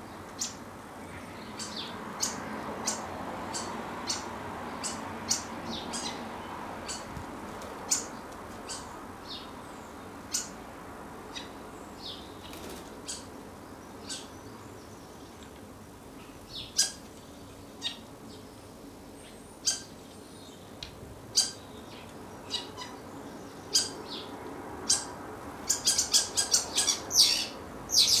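Birds chirping: short, sharp single calls every second or so over steady background noise, then a rapid, louder flurry of calls near the end as common starlings squabble over food.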